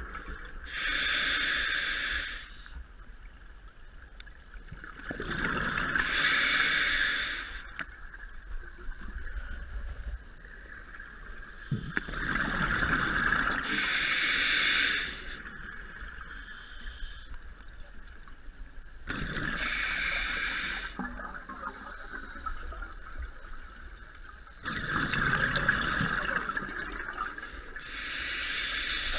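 Scuba diver breathing through an open-circuit regulator underwater: slow breaths about every six seconds, each a hiss on the inhale followed by a loud rush of exhaled bubbles.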